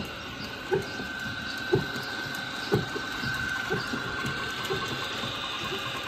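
Antique belt-driven machinery running: a wooden barrel butter churn turning on its iron stand, driven by a flat belt from an old stationary engine. A regular knock comes about once a second, over a steady high whine.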